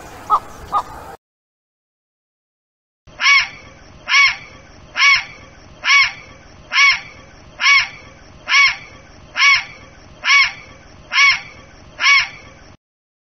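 A water bird calling over and over: eleven loud calls evenly spaced just under a second apart, after a few shorter, softer notes and a brief silence near the start.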